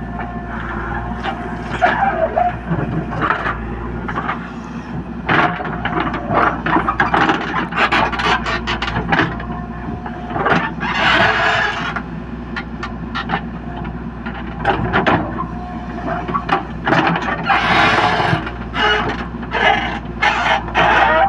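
A JCB 3DX backhoe loader's diesel engine running steadily under work, with repeated clanks and scrapes from the bucket and two longer rushing noises, about eleven and eighteen seconds in, as loads of mud move.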